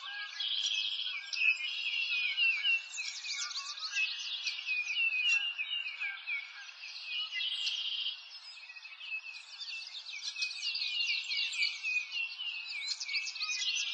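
A chorus of many small birds chirping and singing at once: a dense, unbroken tangle of quick, high-pitched chirps.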